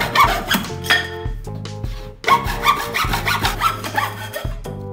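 Hand saw cutting through a thin strip of softwood with quick back-and-forth strokes, pausing briefly about a second and a half in before sawing on.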